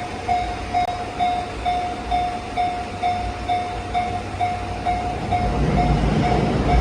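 Japanese railway level-crossing warning bell ringing, one repeated electronic ding about twice a second. From about five and a half seconds in, the low rumble of an approaching train rises beneath it.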